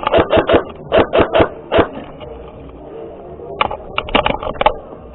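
Airsoft guns firing: sharp snapping shots, several in quick succession in the first two seconds, then a faster rattle of about eight shots near the end.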